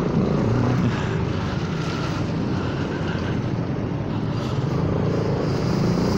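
Honda Forza 300 scooter's single-cylinder engine running at low speed, under a steady hiss of wind and road noise.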